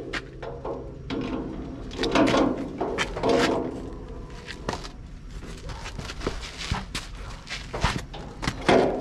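Scattered metal clicks and knocks from hand work on a crawler loader's fuel tank fittings, mostly in the second half.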